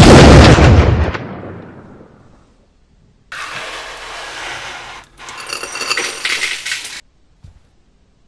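A sudden loud boom that dies away over about two seconds, then broken green bottle glass being swept across a tabletop: two stretches of scraping and clinking, followed by a couple of light knocks.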